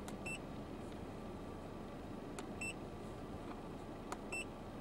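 Autel MD802 scan tool keypad being pressed: a sharp button click followed by a short high electronic beep, twice, once just after the start and once near the end, with a fainter click in between. A steady low hum lies underneath.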